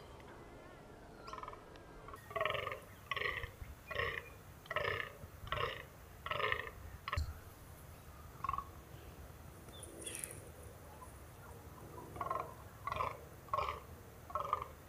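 Fallow buck croaking in the rut: a run of about seven rhythmic croaks in quick succession, then after a pause a second run of four or five. The calls are the buck's groans for dominance during the rut.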